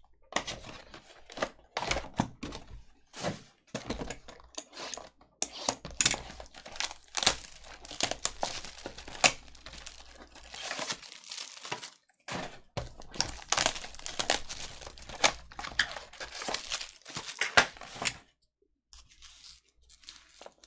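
Cellophane shrink wrap crinkling and tearing as it is stripped off a sealed trading-card box, with cardboard flaps and foil packs handled in irregular rustles and light knocks. The rustling stops about two seconds before the end, leaving only faint handling.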